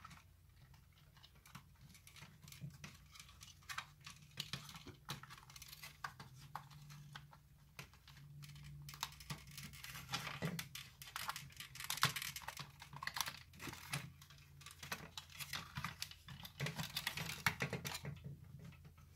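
Faint, irregular clicks, taps and rustles of hard plastic parts being handled as a battery pack and its wire connector are fitted back into a cordless hand vacuum's opened plastic housing, over a low steady hum.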